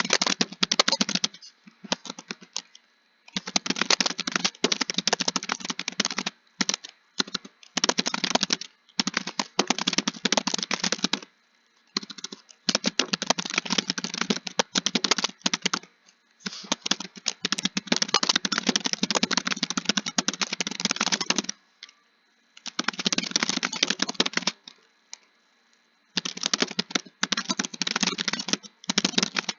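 Fast typing on a computer keyboard, key clicks in quick runs of a few seconds each with short pauses between them.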